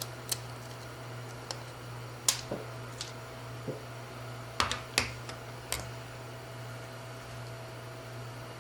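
About nine irregular sharp clicks and taps of fingers working at a small glass LCD screen to pick off its protective film, the loudest near the middle, over a steady low hum.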